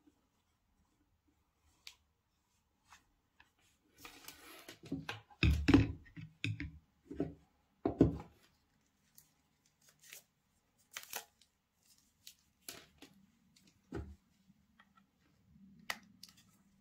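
Packaging being handled and opened: scattered clicks, a short stretch of rustling, and two heavier knocks about six and eight seconds in.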